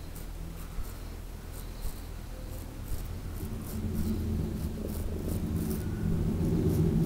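Straight razor scraping through beard stubble in a run of short, scratchy strokes. From about halfway a low rumble with a steady hum builds underneath and grows louder.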